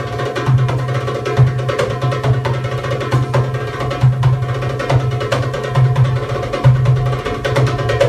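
Live Middle Eastern ensemble playing belly-dance music: hand drums (a goblet drum and a frame drum) keep up a rhythm of deep beats and quick taps over sustained keyboard and guitar notes.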